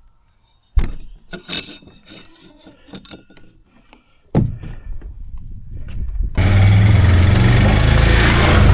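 A few scattered knocks and clatters of wood, then, about six seconds in, a Can-Am Outlander ATV engine suddenly comes in loud and runs steadily.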